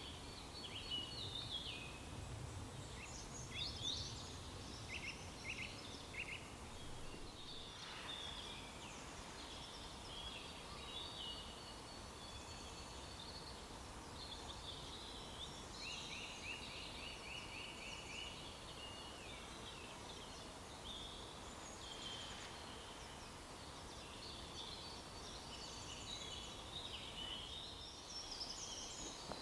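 Several small songbirds singing, with overlapping high chirps and warbles and a rapid trill of repeated notes about sixteen seconds in.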